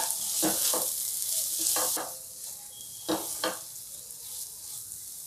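Wooden spatula stirring and scraping onion-tomato masala with spice powders around a stainless steel kadai, several short strokes, over oil sizzling as the masala fries. The sizzle drops about two seconds in.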